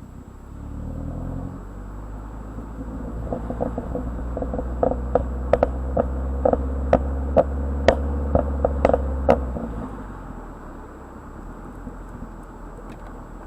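2010 Mazdaspeed3's turbocharged 2.3-litre four-cylinder through an Xforce turbo-back exhaust: the engine note climbs, then holds, while a rapid string of sharp exhaust pops and crackles, roughly a dozen, fires over about six seconds. These are the pops and crackles switched on in the Versatune tune. The engine drone drops away near the end.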